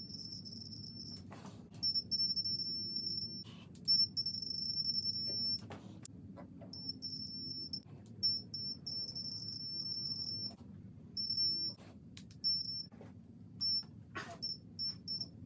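Digital torque tool beeping high-pitched as each head stud reaches the target of the final 80 ft-lb pass. The beeps come in beeps about a second long at first, then in shorter, quicker runs, with a few light clicks of the wrench between them.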